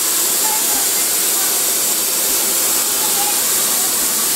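Steady, loud hiss with no change in level, with faint distant voices under it.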